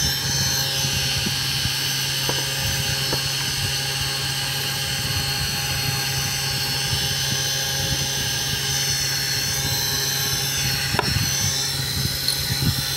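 Homemade CNC router's spindle motor running at a steady speed, a constant hum under a high whine, with a few faint clicks.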